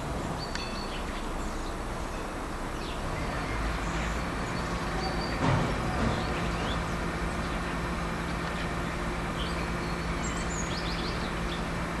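Steady low rumble of city traffic, with faint, short high-pitched bird calls scattered through it and a brief louder sound about five and a half seconds in.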